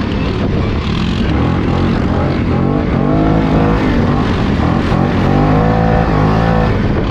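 Segway Snarler ATV's 570 single-cylinder engine revving up and down under throttle on a trail, its pitch climbing and falling several times.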